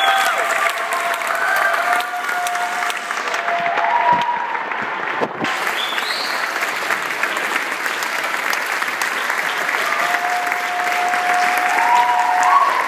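Audience applauding steadily, with voices whooping and cheering over the clapping.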